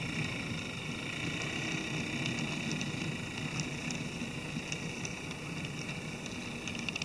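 Model train running along the layout track: a steady low rumble of wheels and motor with a hiss over it, and a quick run of clicks near the end.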